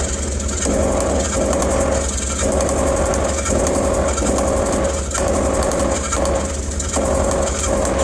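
Workshop machinery running steadily: a constant low hum and a mid-pitched tone that drops out briefly about once a second, over a fast patter of light clicks.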